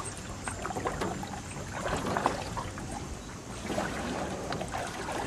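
Canoe being paddled through flood water: water splashing and trickling off the paddle, with small scattered clicks and knocks.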